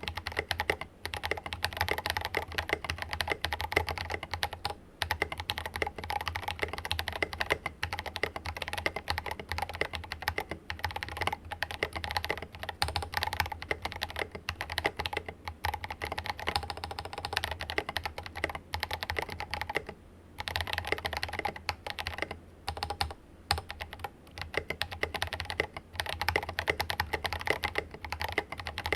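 Fast, continuous typing on a mechanical keyboard fitted with Drop Invyr Holy Panda R2 tactile switches, lightly lubed, with ABS keycaps. The board is a silicone-mounted Rama Works Kara. Keystrokes run in quick streams, broken by short pauses about two-thirds of the way through.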